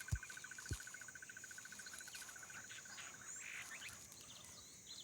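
Bush ambience of calling insects and frogs: a rapid, even pulsed trill that stops about three seconds in, over a steady high-pitched insect whine. Two soft low thumps in the first second and a few short bird chirps near the end.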